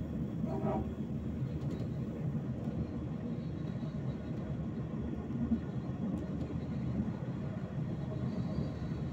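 Steady low rumble of a passenger train in motion, heard from inside the carriage.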